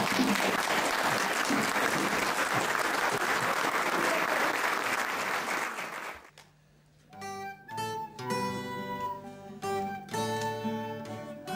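Audience applauding for about six seconds, then fading out. After a brief pause an acoustic guitar starts playing, picking out single notes as the introduction to a song.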